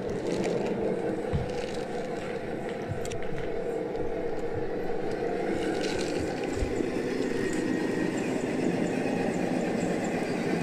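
Radio-controlled semi truck driving up close, a steady mechanical drone with a few light knocks along the way.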